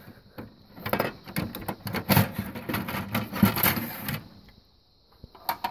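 Encased system-resource card module of an IBM 7552 industrial computer being pulled out of its card cage: a run of scraping, sliding and clicking for about four seconds, then a single click near the end.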